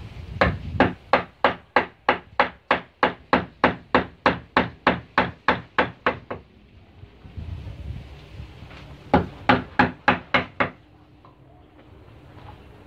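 Wooden mallet striking a carving chisel into wood, a steady run of sharp knocks at about four blows a second. After a pause comes a shorter run of about six blows.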